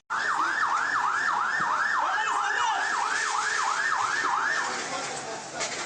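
Emergency vehicle siren in a fast yelp, each sweep rising and falling about three times a second, over steady street noise. The siren stops about four and a half seconds in, and a sudden burst of noise follows near the end.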